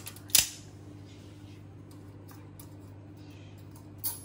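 Sealing tape being peeled off a round beeswax tin: one short, sharp snap about half a second in, a smaller one near the end, and quiet handling in between, over a steady low hum.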